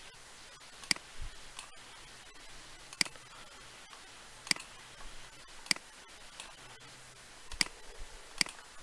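Computer mouse button clicking, about six sharp single clicks at irregular intervals over a faint background hiss.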